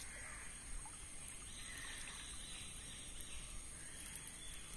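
Faint, steady outdoor background noise, with a soft higher hiss that swells and fades a couple of times.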